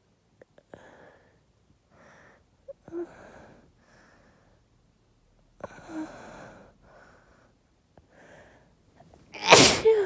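A woman's uncovered sneeze set off by dust: several short breathy catches of breath build up, then one loud sneeze near the end.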